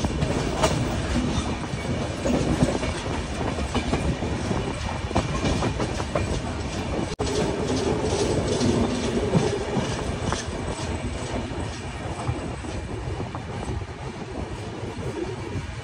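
Sachkhand Express passenger coach running on the rails, heard from an open door: a steady rumble with wheels clacking over rail joints. It grows quieter near the end as the train draws into a platform.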